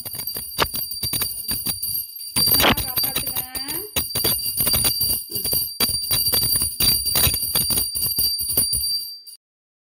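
Handheld puja bell rung continuously, its clapper striking rapidly, with a steady high metallic ring that stops abruptly near the end.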